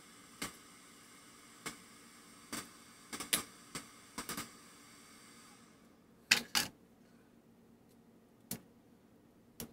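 Small screwdriver tip picking and scraping at the wax filling inside an old electrolytic capacitor can, making irregular sharp clicks, with a louder pair about six seconds in.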